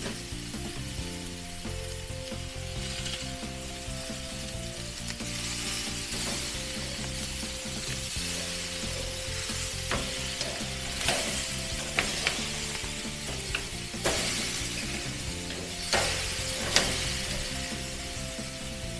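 T-bone steaks sizzling on a gas grill's grates, with metal tongs clicking and clacking against the grates and meat several times in the second half as the steaks are turned.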